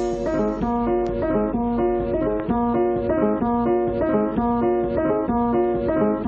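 Background music: a repeating pattern of plucked or keyboard notes with a steady beat.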